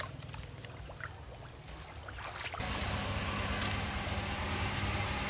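Light splashing of hands working in shallow muddy water, then about halfway a steady motor hum starts suddenly and becomes the loudest sound.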